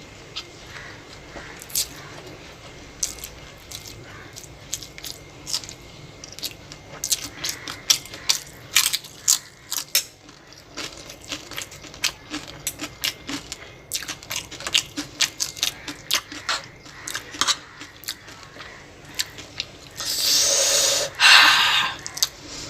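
Close-miked eating: chewing with crunchy bites and many short, sharp crackling clicks. Near the end comes a loud rushing burst of about two seconds.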